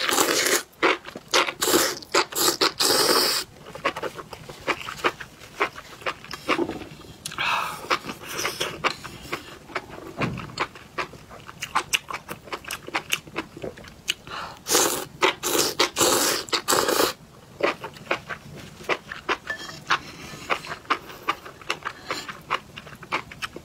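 Close-miked eating of spicy enoki mushrooms in chili-oil broth: loud wet slurps as bundles of the mushrooms are drawn into the mouth, at the start and again about fifteen seconds in, with rapid chewing clicks in between.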